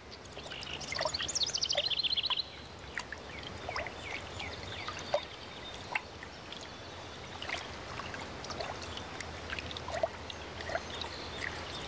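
Quiet pond ambience of small water drips and plinks over a soft trickle. A quick, high chirping trill sounds in the first couple of seconds.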